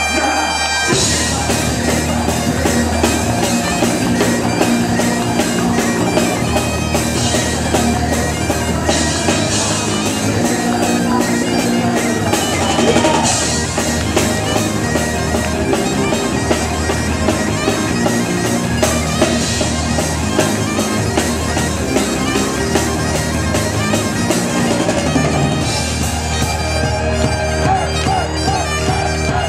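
Celtic rock band playing live: bagpipes carrying the tune over a rock drum kit, with the drums and full band coming in about a second in.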